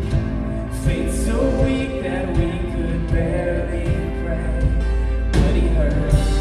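Live worship band playing in a church, with drums, bass, guitars and keys under singing voices, recorded from the room. Cymbal crashes come about a second in and again near the end.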